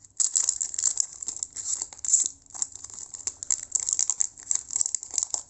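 Trading card pack wrapper crinkling and tearing as it is handled and pulled open by hand: a dense run of irregular crackles.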